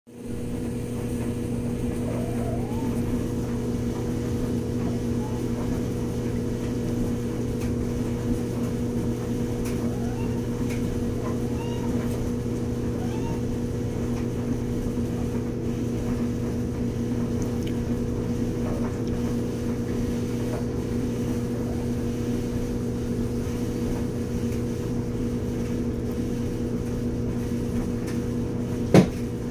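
A steady machine hum of one unchanging pitch, with a few faint short chirps over it between about two and thirteen seconds in, and one sharp click near the end.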